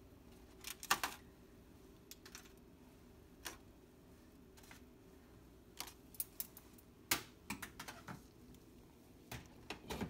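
Scattered light clicks and clinks of metal tongs and foil-wrapped sample packets being set on a drying oven's metal wire rack, over a faint steady hum.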